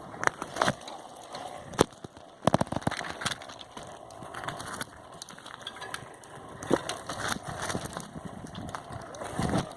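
A bicycle ridden over rough ground, its frame and parts rattling, with scattered sharp knocks and clicks over a steady rustle, the sharpest knocks about two seconds in.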